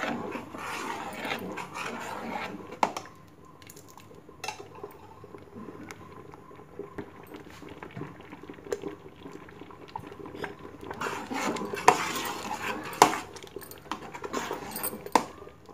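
Steel ladle scraping and knocking against the inside of a steel pot while mashing thick, steaming lentil-and-wheat khichda, with a few sharp clinks. The scraping is heavier near the start and again near the end, with a quieter stretch in the middle.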